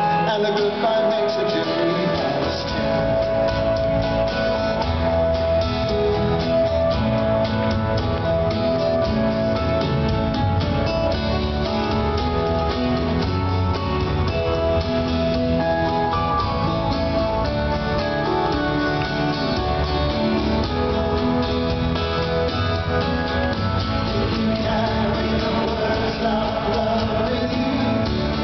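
Live band performance of a folk-pop song: a male lead voice singing over strummed acoustic guitars with band backing, with the bass coming in about two seconds in. Heard from the audience in a large arena hall.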